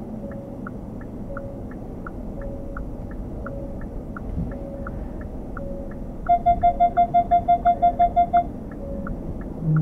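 A Hyundai Kona Hybrid's turn-signal indicator ticking steadily inside the cabin. A loud, rapid run of about a dozen electronic warning beeps, roughly six a second, sounds a little past the middle.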